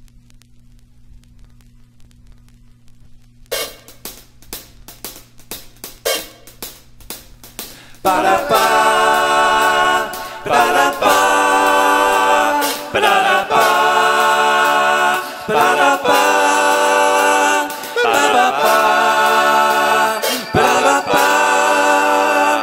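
Opening of an experimental rock song. A steady low hum comes first, then light ticking percussion from about three and a half seconds in. About eight seconds in, loud sustained chords with layered wordless 'ba da baaa' singing come in, in phrases that break every couple of seconds.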